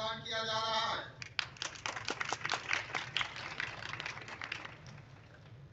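A round of hand clapping from a crowd, starting about a second in and dying away near the end. A man's voice over the loudspeaker just before it.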